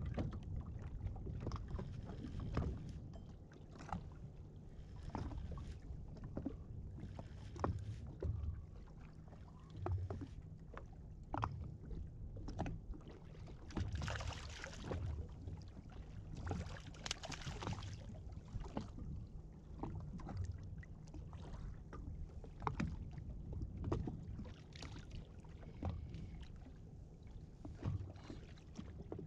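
A hooked fish splashing at the surface beside a jet ski in two short bursts about halfway through. Under it are a steady low rumble of wind and water on the microphone and scattered clicks and knocks from handling the rod and reel.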